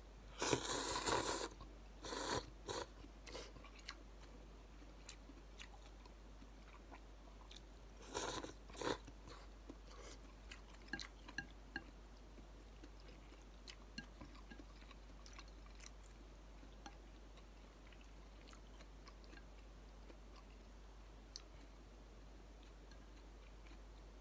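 A person eating Korean instant ramen noodles: two loud slurps of noodles, about half a second in and around eight seconds in. Each is followed by chewing and scattered small clicks that thin out over the second half.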